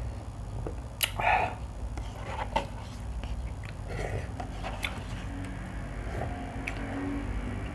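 A person eating instant cup noodles: a sharp click about a second in followed by a short slurp of broth, then scattered soft clicks and mouth noises as noodles are forked up and eaten, over a steady low hum.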